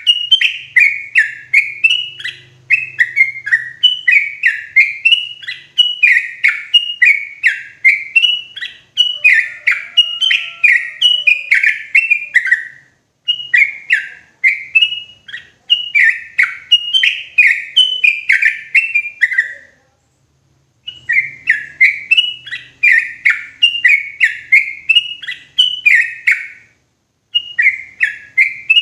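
Yellow-vented bulbul (trucukan) singing: rapid runs of loud, bubbly chirping notes, each note falling in pitch, broken by three short pauses.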